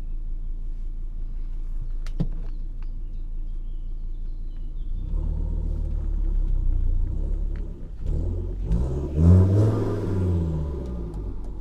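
Straight-piped exhaust of a Volvo S60 2.0T (no catalytic converter, two hi-flow mufflers) running low and steady, then the engine pitch climbing as the car pulls away about five seconds in. Near the end it dips briefly, then rises and falls again more loudly with a hiss over it.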